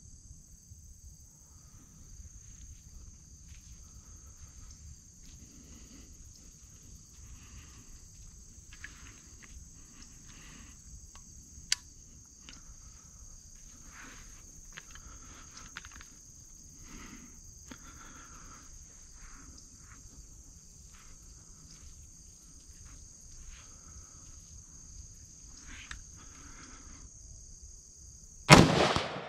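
Quiet outdoor ambience with a steady high-pitched insect drone and faint scattered sounds, then a single loud gunshot near the end, fired at wild hogs.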